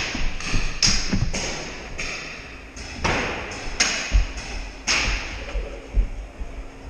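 Paintball markers popping in scattered shots, with paintballs smacking the arena's walls and props and the player's footsteps thudding, all echoing in a large indoor hall.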